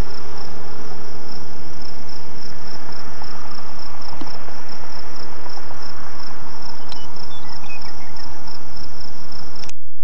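Crickets chirping steadily in an even rhythm, a few chirps a second, over a constant hiss. The sound cuts off abruptly near the end as the recording stops.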